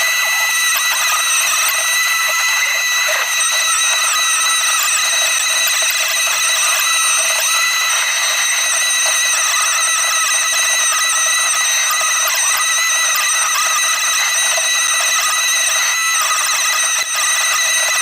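Steady, loud, high-pitched mechanical whine made of several held tones stacked on top of each other, with almost no low rumble.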